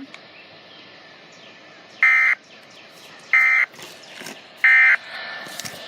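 Three short EAS/SAME digital data bursts from NOAA Weather Radio, each about a third of a second long and about a second apart: the end-of-message code that closes the alert broadcast, heard through a weather radio's speaker over faint static hiss.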